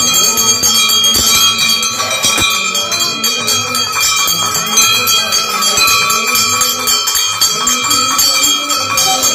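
Temple bells ringing continuously, several metallic tones overlapping and held without a break.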